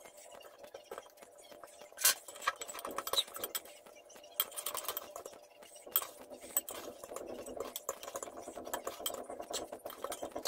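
Hands lifting soft, cream-soaked crepes out of a glass dish and laying them into a glass bowl: scattered light taps and clicks against the glassware, the sharpest about two seconds in, over a faint steady hum.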